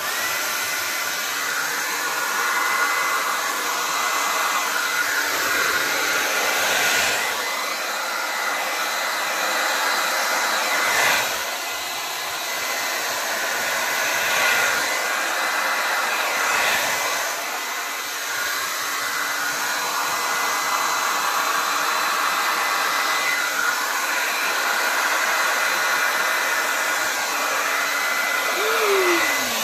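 Handheld hair dryer running on its high setting, blowing a puddle of wet acrylic paint across a canvas: a steady rush of air with a constant whine, swelling and dipping as the dryer is moved about.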